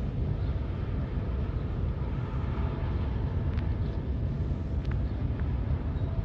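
Steady low rumble of a ferry's engines across the harbour, with a faint steady hum and a couple of light ticks.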